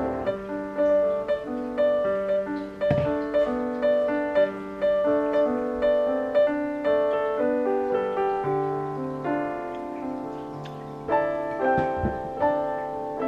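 Background piano music: a gentle melody of short, decaying notes, with a lower accompaniment coming in partway through.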